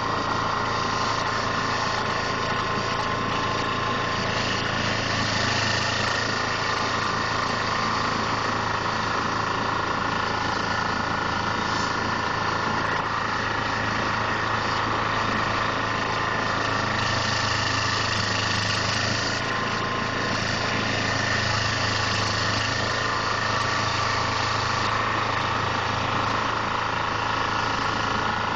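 2004 Carlton SP4012 stump grinder running steadily at working speed while its cutter wheel grinds a stump down into chips. The grinding hiss swells at a few points as the wheel bites harder.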